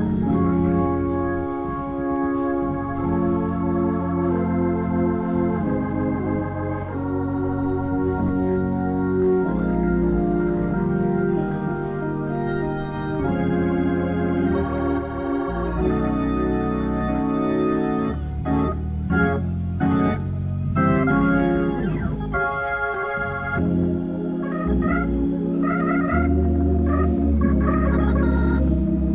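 Hammond C3 tonewheel organ playing sustained full chords over a low bass line, changing to short repeated chords near the end.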